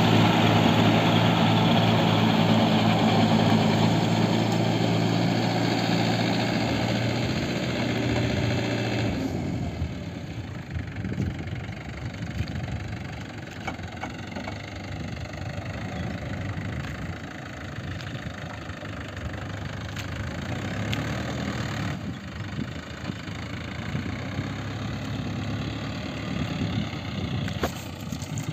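Mahindra Yuvo 575 tractor's diesel engine running steadily under load as it drives a rotavator through wet mud. It is loud and close for about the first nine seconds, then fainter.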